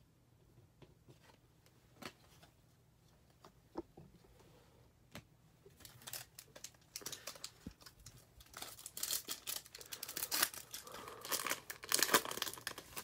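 Foil wrapper of a Bowman baseball card pack being crinkled and torn open by hand. A few light clicks at first, then dense crinkling and tearing from about six seconds in, loudest near the end.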